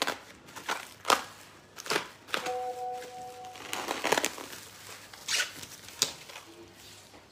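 Plastic wrapping on a parcel crinkling in short, irregular bursts as it is handled and opened by hand.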